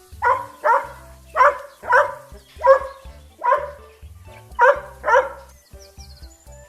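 Dog barking eight times, some barks in quick pairs.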